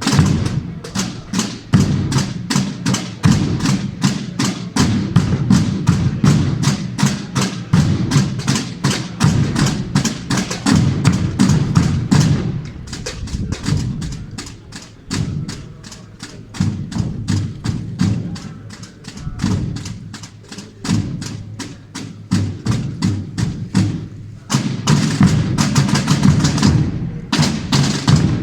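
Spanish Holy Week procession drum corps: tambores playing fast, dense strokes over heavy bombo bass-drum beats. The playing drops to a softer, thinner passage in the middle and comes back loud about four seconds before the end.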